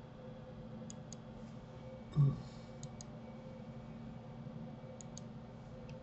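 Computer mouse clicking: three quick pairs of clicks a couple of seconds apart, over a faint steady hum. A brief low vocal sound comes about two seconds in.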